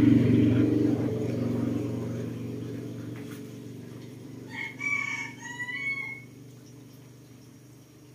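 A rooster crows once, about five seconds in, for about a second and a half. Under it, a low engine rumble fades away over the first few seconds.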